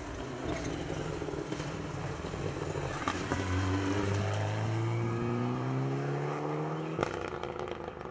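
Mitsubishi Lancer Evolution rally car's turbocharged four-cylinder engine accelerating hard past and away, its pitch climbing steadily for about four seconds. A sharp crack comes near the end, and the engine note breaks off.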